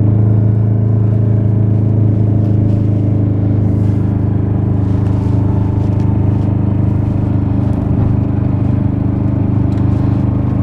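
The two-cylinder Kubota Z482 diesel of an Aixam microcar, heard from inside the cabin, running at a steady engine speed while the car drives. The engine's throttle limiter has been removed so it can make its full 9.9 kW.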